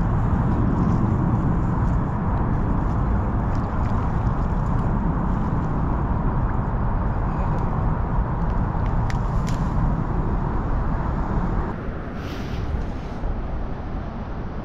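Steady low rushing outdoor noise with a few faint clicks. It drops a little in level about twelve seconds in.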